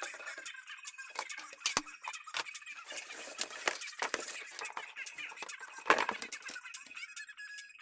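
Hands handling and fitting PC parts in a computer case: irregular clicks, taps and rattles of plastic and metal, with a rustle around the middle and a sharper knock about six seconds in.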